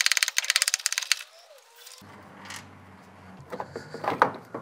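Ratchet wrench clicking rapidly as a 10 mm bolt is turned out, then scattered clicks and knocks of the tool and parts being handled.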